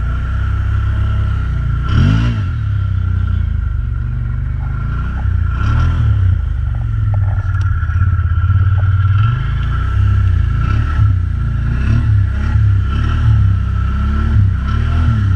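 ATV engine running and revving up and dropping back again and again, over a steady high whine.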